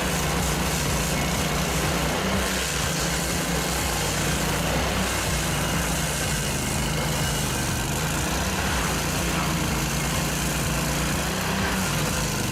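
Engine of heavy machinery running steadily at an even pitch.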